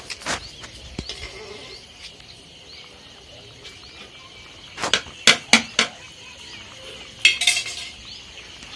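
Sharp clinks in the open air: a quick run of four about five seconds in and a short rattling burst about two seconds later, over faint steady background noise.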